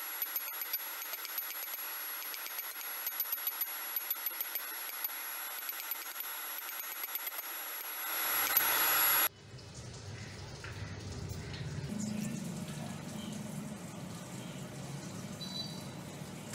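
Hammer striking a red-hot stainless steel bolt on a steel bar used as an anvil, with irregular metallic taps, some in quick runs. About eight seconds in a hiss swells and cuts off sharply, and a low, muffled rumbling follows.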